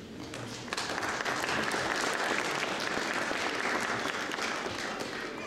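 Audience applauding, the clapping rising sharply about a second in and tapering off near the end.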